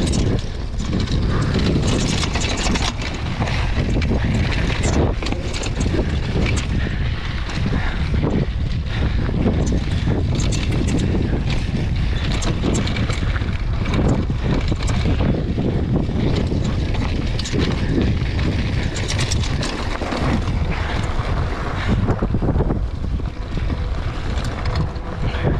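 Wind rushing over the camera microphone as a mountain bike rolls fast down a dry dirt trail, with tyres crunching on loose gravel and the bike rattling with many small knocks over the bumps.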